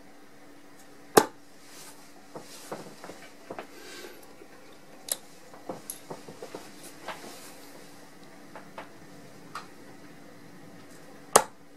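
Two steel-tip darts thudding into a sisal bristle dartboard, one about a second in and one near the end. In between comes a run of small clicks and scrapes as the darts are pulled out of the board and handled.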